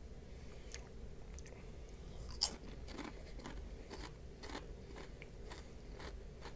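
Close-up chewing of crunchy Flamin' Hot snacks: a string of irregular crunches as the mouthful is bitten and ground, with one sharp, louder crunch about two and a half seconds in.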